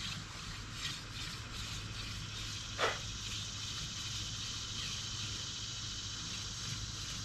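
Hand drill being spun, with palms rubbing a Yellow Crownbeard spindle back and forth as its tip grinds into a maple fireboard, giving a soft, even rubbing rhythm. A brief squeak that drops in pitch comes about three seconds in.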